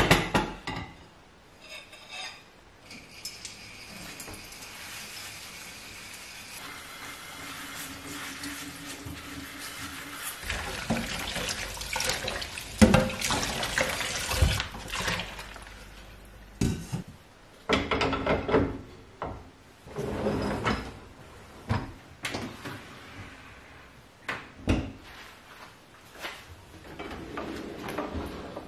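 Hand-washing dishes at a steel kitchen sink. Tap water runs steadily through much of the first half while plates and a stainless steel pot clink and knock. Later come separate clatters of crockery and pans being handled.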